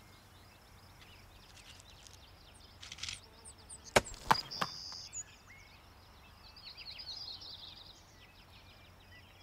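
Bighorn ram's hooves clattering on rock as it runs down a cliff: two sharp clacks about four seconds in, with a few smaller knocks around them, over a quiet background of faint high chirps.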